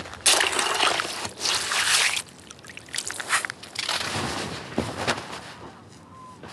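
Broken ice chunks and slush sloshing and crunching in the water of a freshly cut ice-fishing hole. The splashing and scraping with sharp clicks is loudest in the first two seconds, then falls to fainter, scattered crackles.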